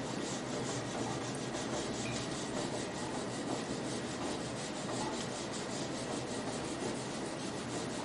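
Eraser rubbing back and forth across a whiteboard in quick, even strokes, wiping off marker writing.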